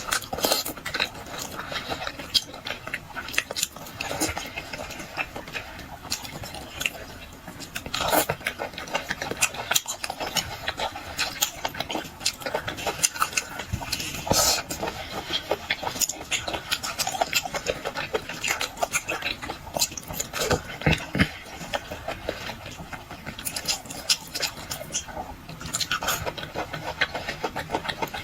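Close-miked eating sounds: a person chewing and biting food, with many small wet clicks and crackles and the odd tap of cutlery.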